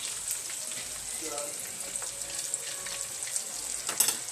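Breaded pieces deep-frying in hot oil, a steady sizzle with scattered crackling pops. A sharp click about four seconds in.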